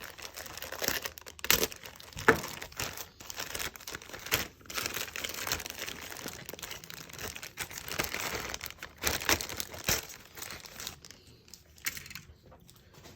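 Plastic parts bag from a model kit crinkling and rustling as it is cut open and handled, with many small irregular crackles that die down near the end.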